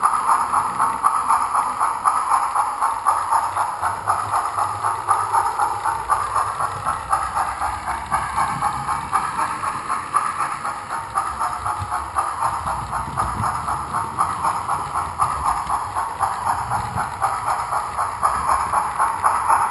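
HO-scale model train led by a Bachmann 0-6-0 steam switcher running along the track: a steady, rapid clatter of small metal wheels on rail, with a low rumble swelling in the middle.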